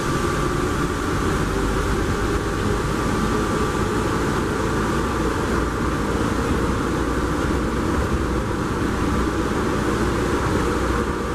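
Underground airport people-mover train running through its tunnel, heard from inside the car: a steady rumble with a thin, steady whine over it.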